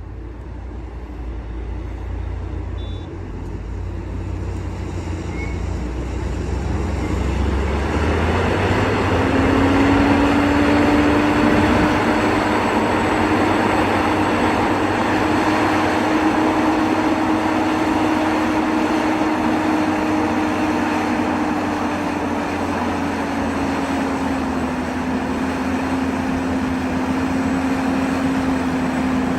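A vehicle's motor running: a low rumble that grows louder, then from about eight seconds in a steady drone with a hum that drifts slightly up and down in pitch.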